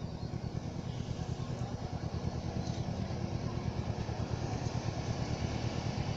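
Motor vehicle engine running with a steady, low, pulsing rumble that grows slightly louder.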